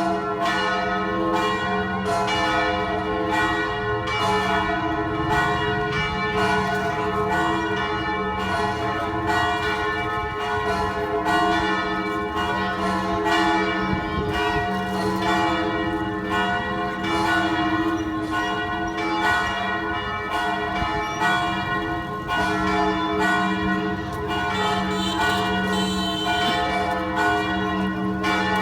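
Western-style church bells ringing in a continuous peal, strike after strike with the tones ringing on and overlapping.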